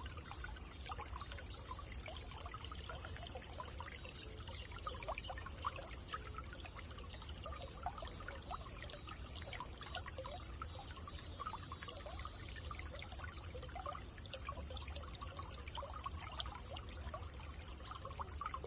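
A small stream trickling and babbling over stones, with many small splashes, over a steady high hiss.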